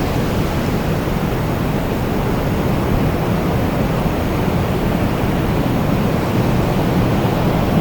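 Wind blowing as a steady, even rush, heaviest in the low end, with no gusts or breaks.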